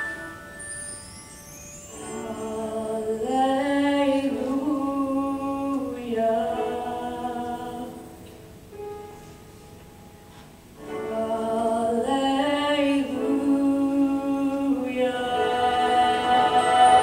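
Girls' show choir singing held chords in slow, sustained phrases. There is a softer stretch about halfway through, and the sound swells again toward the end.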